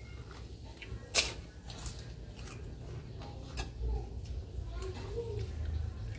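Metal spoon clicking and scraping against a ceramic soup bowl while eating, a sharp click about a second in the loudest, with a few lighter clicks after, over a steady low hum.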